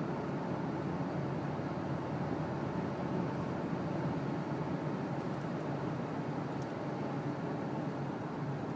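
Steady running noise of a 2007 Dodge Dakota pickup, an even rumble and hiss with no distinct knock or squeal standing out.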